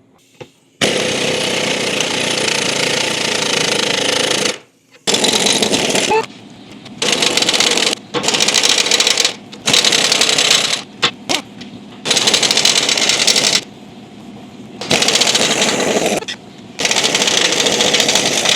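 Impact wrench hammering off heat-warmed leaf spring U-bolt nuts, running in repeated bursts of one to four seconds with short pauses between.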